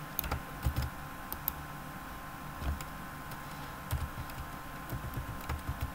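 Keys tapped on a computer keyboard: irregular clicks and light thuds, a few at a time, as text is edited.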